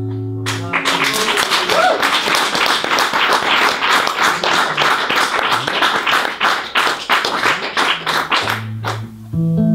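A small audience claps by hand after an electric guitar piece, many separate claps, with one brief rising call about two seconds in. The last guitar chord rings out under the first claps, and the electric guitar starts playing again near the end.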